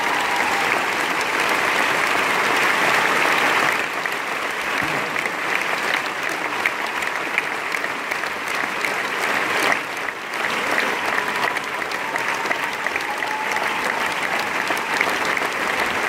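Large concert audience applauding steadily, a dense clapping that carries on without a break after the song has ended.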